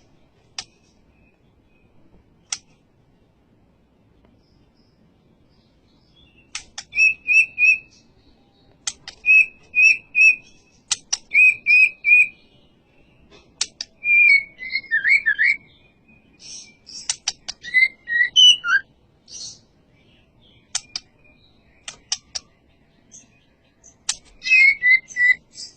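White-rumped shama (murai batu) singing: after a few sharp clicks in the first seconds, it delivers bursts of fast repeated whistled notes in short runs, then gliding, falling phrases, with more clicks and quick notes near the end.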